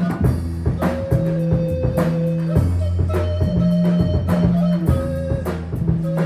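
Band music: bass guitar playing sustained low notes over a drum kit keeping a steady beat, with guitar on top.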